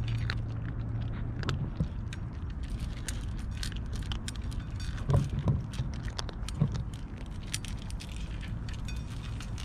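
Several cats eating dry kibble from metal dishes: a dense patter of crunching and small clicks as teeth and kibble knock against the metal, with a couple of louder knocks past the middle over a low rumble.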